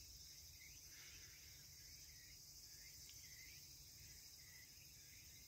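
Near silence: faint, steady high-pitched insect chirring, with small chirps repeating about every half second.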